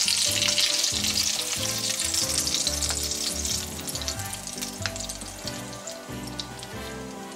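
Hamburg steak patties sizzling in a frying pan, the sizzle dying away as they are lifted out. Background music with a steady beat runs underneath.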